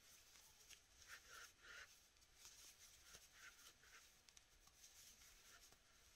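Faint, soft rustling of yarn as a crochet hook works it through the stitches, in short irregular scratches about every half second to a second.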